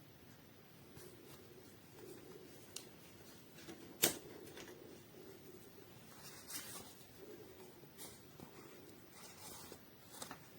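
Faint scattered clicks and rustles of handling, with one sharp click about four seconds in.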